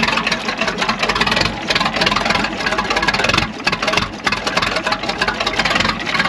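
AEC Matador's six-cylinder diesel engine idling at tick over just after a cold start, running steadily.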